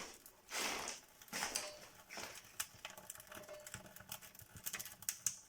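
Irregular small crackles and clicks, with a short hissing rustle about half a second in and another about a second and a half in, as a fire is first lit in a wood-burning stove.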